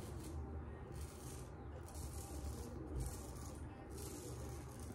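Inoue Tosuke kamisori straight razor scraping through lathered stubble on the jaw: a series of short, dry scratchy strokes, about one a second.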